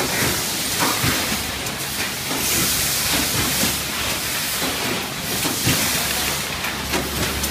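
Auro AMP 500 pouch form-fill-seal packing machine running: a steady hiss with short mechanical knocks every second or so as the filler and sealing jaws cycle.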